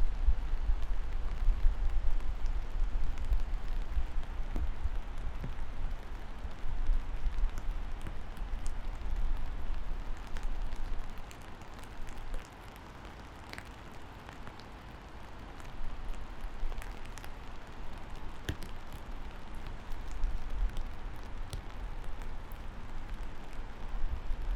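Steady rain with scattered sharp drips, over a low rumble that drops away for a few seconds about halfway through.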